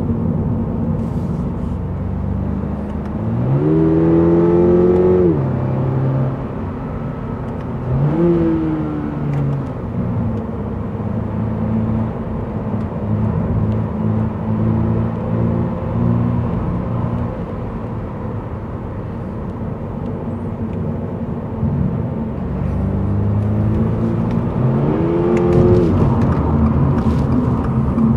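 Inside the cabin of a 2023 Subaru BRZ with an automatic transmission: the engine pulls under acceleration over a steady drone and tyre road noise. Three times its note climbs and then falls away, a few seconds in, around eight seconds in, and near the end, as the transmission shifts up. Part of the engine note is played through the car's speaker system.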